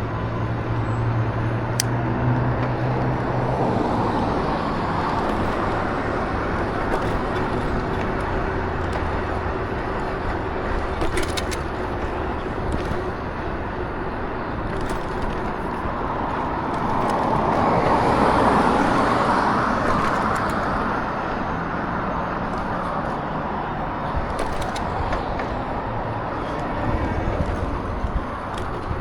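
A vehicle on the move: an engine running under steady wind and road noise, the noise swelling for a few seconds around the middle.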